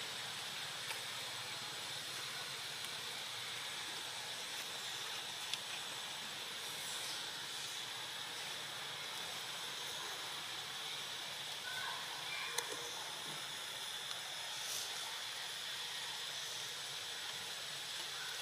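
Steady outdoor background hiss with a faint, constant high-pitched drone, broken by a few faint ticks.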